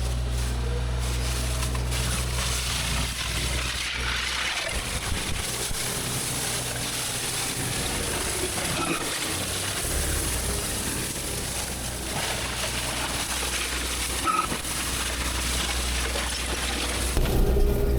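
Engine of heavy machinery running with a steady low hum under a rushing noise. The hum drops away for a few seconds mid-way and comes back.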